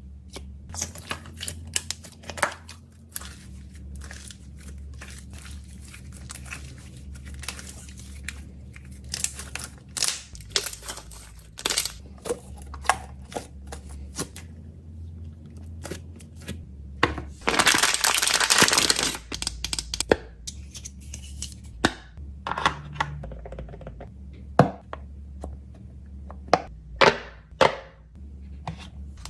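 Hands handling packaging: scattered clicks, taps and crinkling of plastic or paper, with one loud tearing rustle lasting about two seconds roughly two-thirds of the way through.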